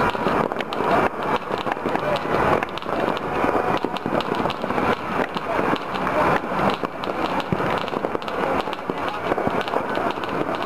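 Dense, continuous popping and crackling of many firecrackers and fireworks going off at once across a city, the small bangs overlapping without a break.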